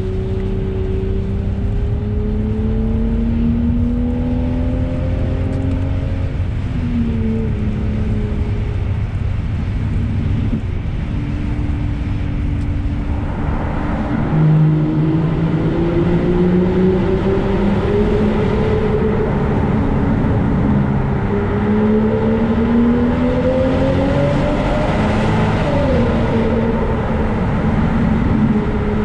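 Straight-piped V12 of a BMW 7 Series (E66), heard from inside the cabin as the car drives. The engine note climbs steadily and drops suddenly at each upshift, several times over.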